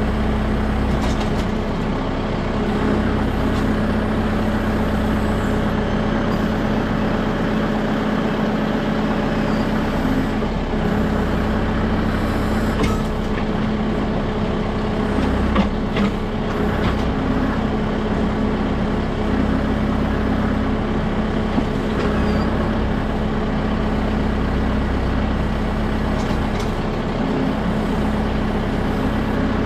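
Kubota M6060 tractor's diesel engine running steadily while it powers a backhoe digging out a ditch, with a few short knocks in the middle.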